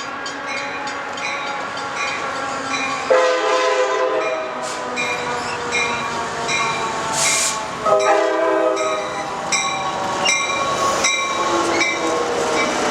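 Passenger train locomotive horn sounding two long blasts, about three seconds in and again about eight seconds in, with a grade-crossing warning bell ringing steadily at about two strokes a second throughout.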